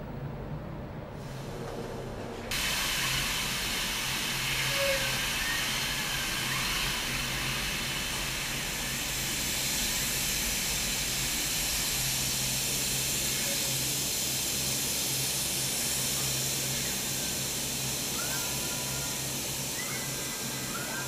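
Steady hiss of workshop equipment over a low hum, the hiss starting abruptly about two and a half seconds in.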